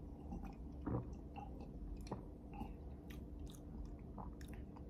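Faint mouth sounds of a person sipping a sparkling energy drink from a glass and tasting it: a few soft sips and swallows with scattered small wet clicks of the lips and tongue.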